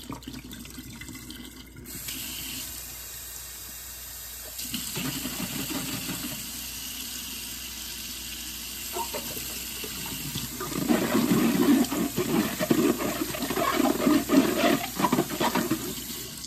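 Kitchen faucet running hot water into a stainless steel sink, starting about two seconds in, as a plastic ketchup bottle is rinsed. From about ten seconds in the sound grows louder and uneven as water splashes and sloshes into the bottle held under the tap.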